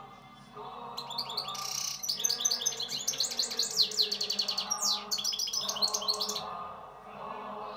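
European goldfinch singing: a rapid, unbroken string of high chirps, trills and quick sweeps that starts about a second in and stops about a second before the end.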